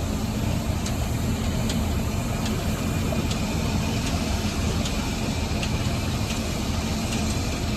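Heavy diesel construction machinery running steadily with a constant low rumble and faint regular ticks about once a second.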